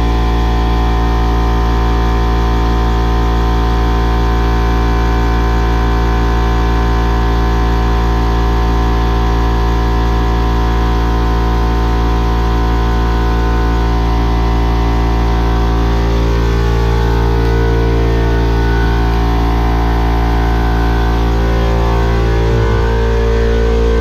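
A steady, loud hum made of many unchanging tones, shifting slightly in its middle tones about two-thirds of the way in.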